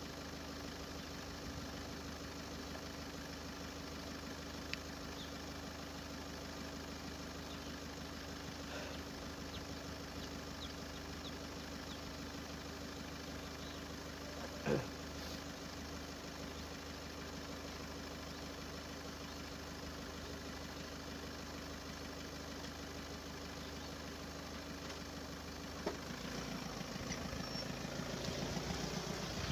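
A car engine idling steadily at the closed crossing. About four seconds before the end there is a clunk, followed by a louder, busier mechanical sound as the barrier arm is raised.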